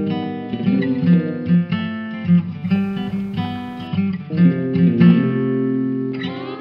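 Acoustic guitar playing an instrumental passage of picked notes and chords, with a fuller strummed chord near the end.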